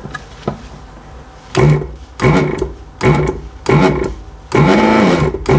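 ZD-985 desoldering station's built-in vacuum pump, switched on by the desoldering gun's trigger. It comes in four short bursts starting about a second and a half in, then runs continuously for the last second. The pump is sucking well.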